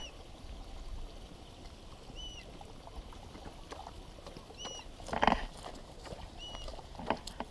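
Dogs moving and sniffing close by through grass and mud, with soft rustles and scuffs and a louder knock about five seconds in. A short high chirp repeats every couple of seconds.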